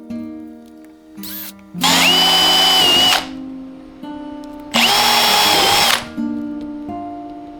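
Power drill run in two bursts of about a second and a half each, spinning up to speed and holding there, likely cutting the vent opening in the camper wall. Background music plays throughout.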